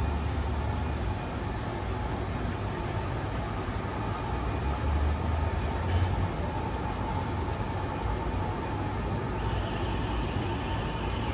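Steady low rumble of vehicle traffic in a city centre, with a constant mid-pitched hum and a few faint, brief high squeaks.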